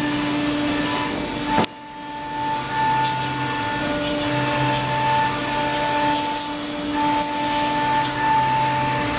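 CNC milling machine cutting a plastic block: a steady spindle whine made of several held tones, with a lower hum that drops out and returns every couple of seconds as the cut proceeds, and faint hiss from the chips. A sharp click and a brief dip in level about two seconds in.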